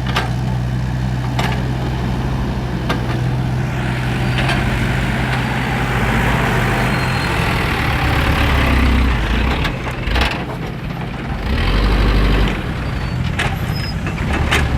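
Heavy vehicle engine running steadily, with a rushing hiss through the middle of the clip and a few sharp knocks.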